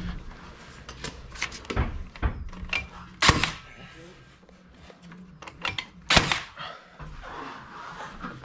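DeWalt 18V cordless cable stapler firing staples into a timber roof truss to fix lighting cable: two sharp shots about three seconds apart. Lighter clicks and knocks come before them as the tool is positioned.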